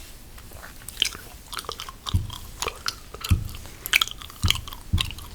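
Gum chewing close to the microphone: irregular wet smacking clicks, with a few soft low thuds from the jaw.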